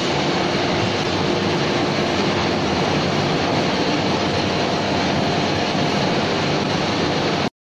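Steady, loud machinery noise of a forge shop where an 18-ton closed-die hydraulic forging hammer is working, with faint humming tones and no distinct hammer blows. It cuts off abruptly near the end.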